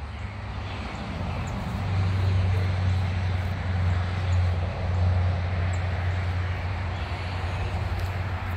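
Steady low engine drone, growing stronger about two seconds in and then holding.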